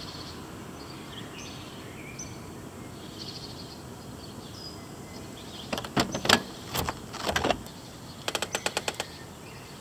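Outdoor ambience with small birds chirping faintly. Past the halfway point come a few loud sharp knocks, then a quick rattle of about ten clicks.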